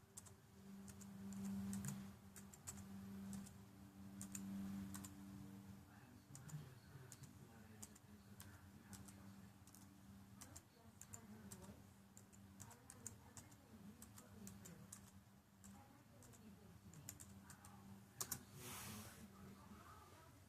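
Faint typing and clicking on a laptop keyboard, with keystrokes scattered throughout. A steady low hum runs under them for the first several seconds.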